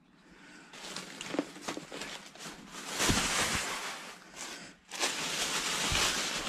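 Rustling and crinkling from handling the toys and their packaging, with scattered small clicks, louder about three seconds in and again from about five seconds in.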